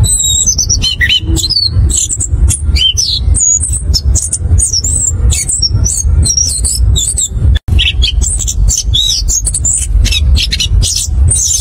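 Chestnut-capped thrush (anis kembang) singing a fast, unbroken run of varied whistles, chirps and trills, the rolling 'ngerol' song of a bird in full voice. A low rumble runs underneath, and the sound drops out for an instant a little past halfway.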